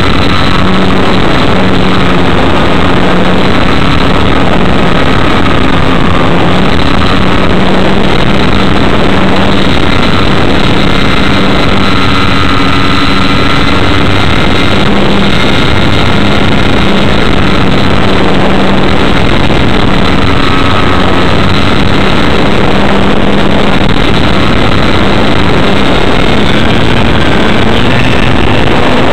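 Motor and propeller of a small radio-controlled foam model airplane, heard from a camera on its wing in flight: a loud, steady drone with a whine that wavers slightly in pitch and steps up a little near the end, over the rush of air on the microphone.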